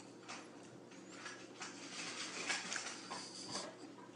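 Faint rustling with scattered soft taps and clicks.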